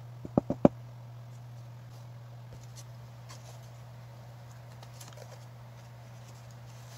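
Four quick sharp taps of a hard plastic tube against a table top, about half a second in. After that, faint crinkling and rustling of a paper chopstick wrapper being handled, over a low steady hum.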